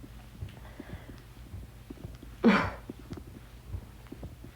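A woman's brief vocal sound, a short exclamation or breathy noise, about halfway through, over a low steady room hum with faint clicks.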